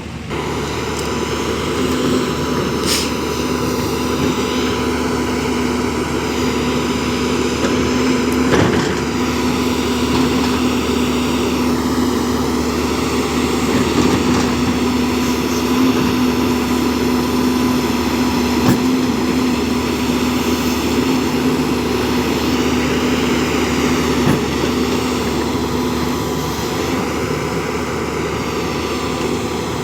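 JCB backhoe loader's diesel engine running steadily while working, with a steady hum and one sharp knock about eight or nine seconds in.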